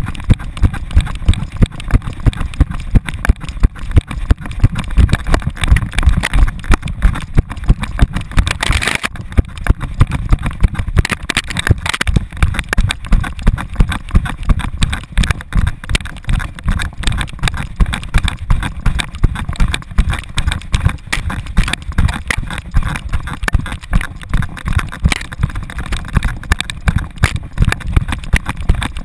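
An American Staffordshire terrier running at a steady gallop with a camera strapped to its back: each stride jolts the mount, giving a regular thump about twice a second over a steady low rumble.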